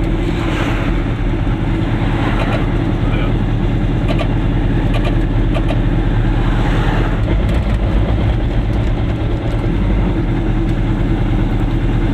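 Goggomobil's small air-cooled two-stroke twin engine running steadily while driving, heard from inside the car's cabin.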